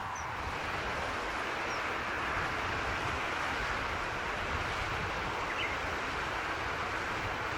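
Steady outdoor rushing noise with a low rumble underneath, and a few faint, short high bird chirps, about three in all.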